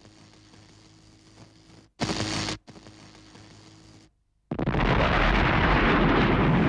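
Title-sequence sound effects. A faint hiss with a low hum is broken about two seconds in by a short, loud burst of noise. After a brief silence, a loud, steady, rumbling roar starts about four and a half seconds in.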